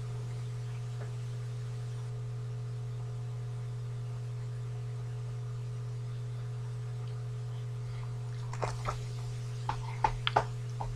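Steady low electrical hum on the recording, with a few light clicks near the end.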